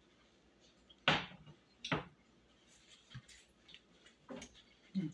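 A few separate knocks and clinks of kitchenware as a ceramic soup bowl with a spoon in it is set down on the stovetop: two sharper knocks about a second and two seconds in, then a few softer taps.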